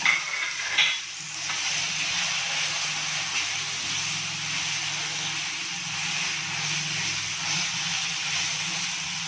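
Raw minced chicken and onions sizzling steadily in hot oil in a frying pan as they are stirred and broken up with a silicone spatula, with two short, sharper sounds in the first second.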